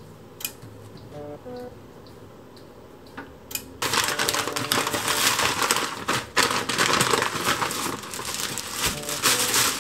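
A shopping bag crinkling and rustling loudly as it is handled and opened. It starts suddenly about four seconds in.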